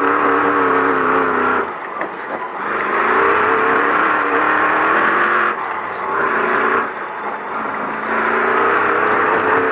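Ford Ranger desert race truck's engine running hard under throttle, heard from inside the cab, with a steady rushing noise over it. The engine eases off and picks up again about three times as the truck is driven through turns.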